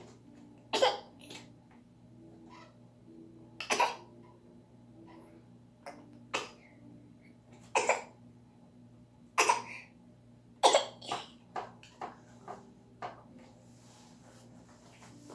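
Toddler giving short, sharp coughs, one every second or few, with a quicker run of smaller ones near the end.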